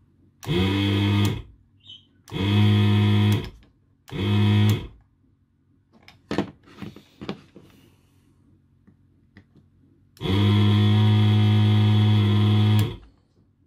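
Electric desoldering gun's built-in vacuum pump buzzing in bursts: three short ones of about a second, then one of about two and a half seconds, with a few light clicks between. Its suction is weak because its tube is blocked.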